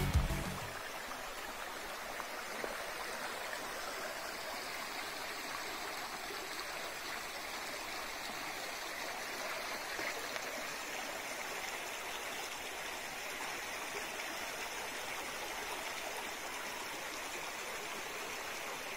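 Background music fades out at the start, then a shallow forest stream flows steadily over stones.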